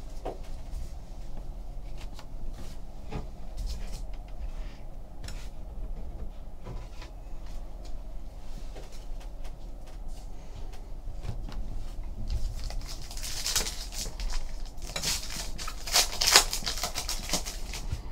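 Foil wrapper of a 2015 Panini Prizm baseball card pack being torn open and crinkled: a dry, crackly rustle that starts about twelve seconds in and comes in several bursts. Before it, only faint scattered taps and handling of cards and packs on the table.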